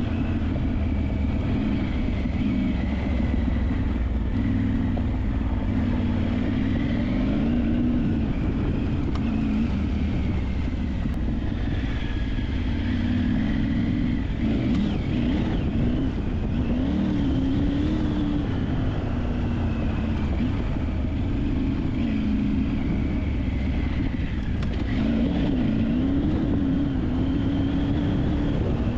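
A vehicle engine running under way, its pitch rising and falling as the revs change, over a steady low rumble.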